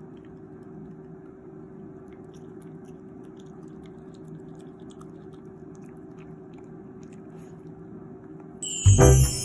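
Small Shiba Inu (mameshiba) chewing a treat: faint, scattered crunches over a steady low hum. Loud keyboard music starts near the end.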